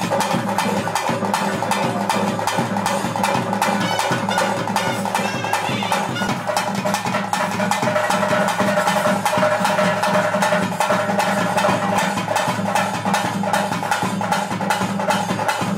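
Traditional music: fast, steady drumming over a continuous droning tone, with a wavering wind melody above it.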